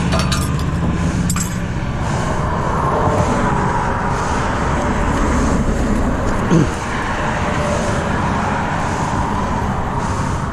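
Road traffic: vehicles passing steadily with a low rumble, and a few sharp clicks in the first second or so.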